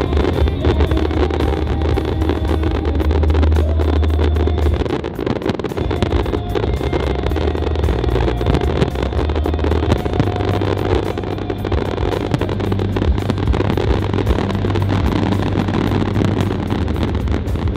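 An aerial fireworks display going off: a continuous low rumble with dense crackling, over show music played through loudspeakers.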